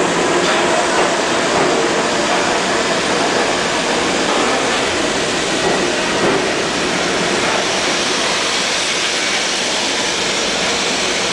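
R44 subway train pulling out of the station, its wheels and motors making a steady, noisy rumble along the rails.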